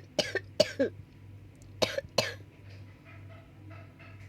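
A person coughing: a quick run of about four coughs in the first second, then two more about two seconds in, over a steady low hum.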